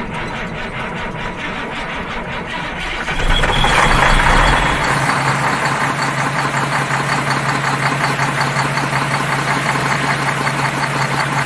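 Semi-truck's diesel engine running, with a louder surge about three and a half seconds in, then settling into a steady idle with a low hum.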